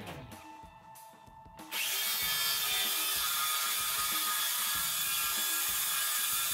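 Cordless circular saw cutting through a wooden board, starting abruptly a little under two seconds in and then running at a steady, loud level as it is pushed along the guide.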